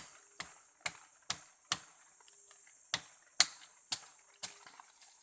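A blade chopping into the wood of a kayu muru tree: about nine sharp strokes, roughly two a second, with a short pause near the middle. A steady high buzz of forest insects runs underneath.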